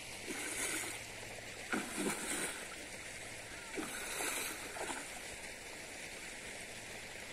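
Water splashing and sloshing in a few short, irregular bursts over a steady hiss.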